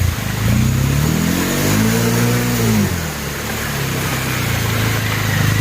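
Motorcycle engine running under load on a rough climb, revving up once about two seconds in and dropping back, then running steadily.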